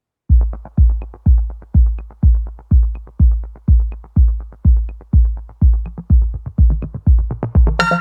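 Electronic dance music: a steady four-on-the-floor kick drum at about two beats a second with light off-beat ticks, joined by a bright synth chord near the end.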